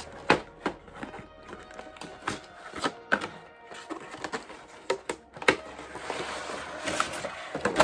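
Cardboard toy box being worked open by hand: a series of sharp taps and clicks from its card flaps and tabs, then a longer scraping rustle from about six seconds in, over steady background music.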